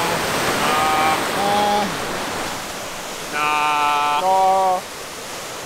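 River whitewater rapids running high with spring meltwater: a steady rushing of water. A man's voice calls out briefly twice over it, once about a second in and again, louder and with held notes, past the three-second mark.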